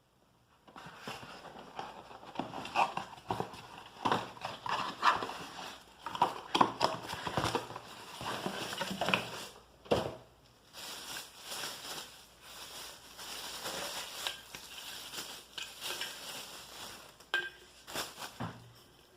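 Packaging being handled and unwrapped: irregular crinkling and rustling with many sharp clicks and knocks, pausing briefly about halfway through.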